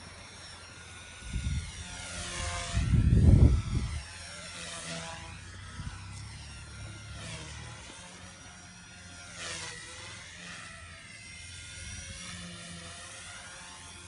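WLToys V977 mini RC helicopter's brushless electric motor and rotor whine, repeatedly rising and falling in pitch as it flies aerobatics. Wind buffets the microphone with a loud low rumble about one to four seconds in.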